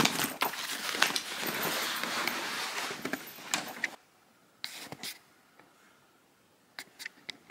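Rustling with light clicks and knocks of things being handled, which stops about halfway through, leaving near silence with a few faint clicks.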